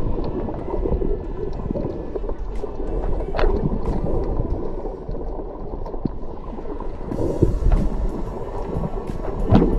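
Muffled underwater noise from a camera in a waterproof housing: a low, steady rush and slosh of water with a few sharp clicks and knocks.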